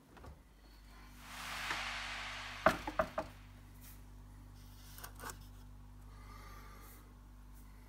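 Refrigerator opened, with a steady low hum and a brief rushing hiss. Then a plastic shaker bottle is handled on a fridge shelf: three quick sharp knocks in half a second, loudest of all, and two softer knocks a couple of seconds later.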